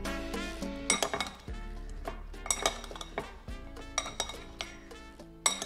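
Metal serving spoon and fork clinking irregularly against a ceramic bowl as halved Brussels sprouts coated in maple syrup are tossed. Background music with steady held notes plays underneath.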